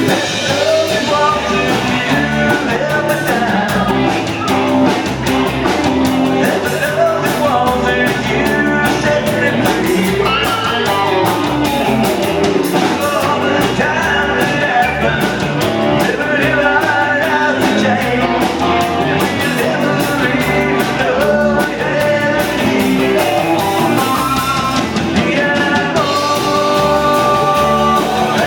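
A live rock band playing a steady mid-tempo rock song, with electric guitar lines over bass and drums.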